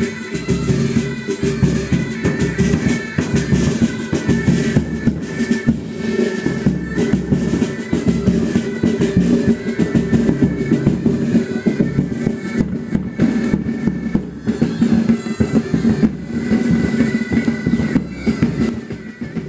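Military pipe band playing: bagpipes sounding steady held tones over a rapid drum beat with bass drum.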